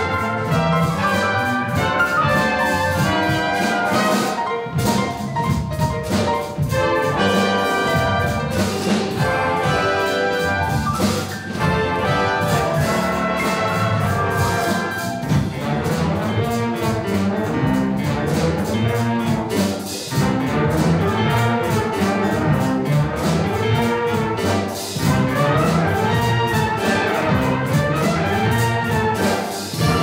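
Student jazz band playing: saxophones, trumpets and trombones over piano, guitar and rhythm section, with a steady beat.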